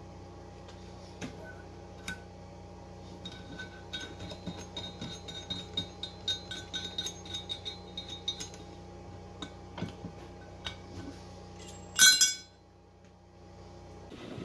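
Metal parts and tools clinking: scattered light ticks, a quick run of small ringing clinks in the middle, then one loud ringing metal clang near the end. A steady hum runs underneath.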